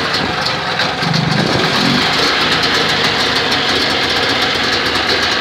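Rys 440 snowmobile's two-stroke engine running steadily, just started by pull cord, with a brief fuller note about a second in.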